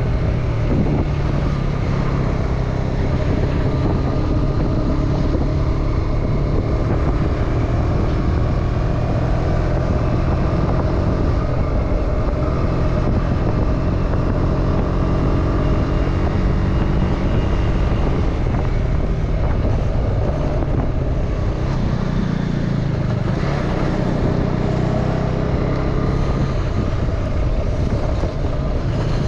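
KTM Duke 250's single-cylinder engine running steadily on the move, its pitch drifting slowly up and down with the throttle and dropping for a few seconds near the end.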